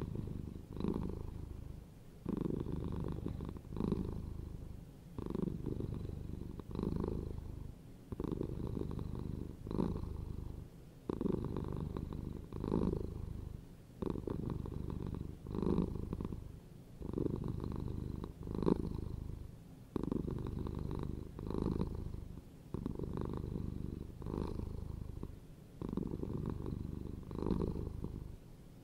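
Domestic cat purring steadily. The purr swells and eases about every second and a half as the cat breathes in and out.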